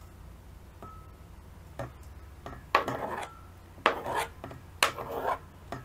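A metal spoon scraping grated cheese off a plastic cutting board into a stainless steel bowl, in three strokes about a second apart. Each stroke starts with a sharp tap.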